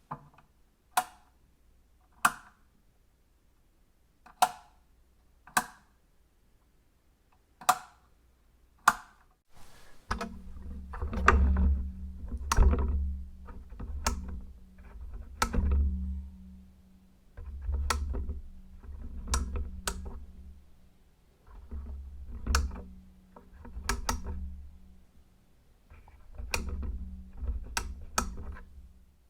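A switch being flicked on and off, giving sharp single clicks a second or two apart. About ten seconds in, the clicks start switching a low electrical hum on and off, and the hum runs for one to three seconds at a time between clicks.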